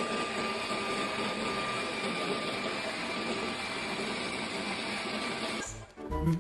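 A steady machine whir, like a small motor running, that cuts off suddenly near the end.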